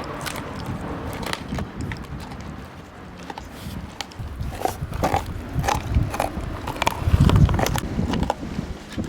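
American Staffordshire terrier gnawing on a big raw cow bone close up: irregular cracks and crunches with wet chewing, getting busier and louder about halfway through.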